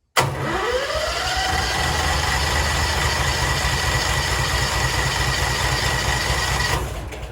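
Bigbear BBC72 wood chipper's engine turning over on its electric starter without catching: a whine rising as the starter spins up, then steady cranking with a fast pulsing beat, stopping near the end. It will not fire because the emergency kill switch was in the kill position.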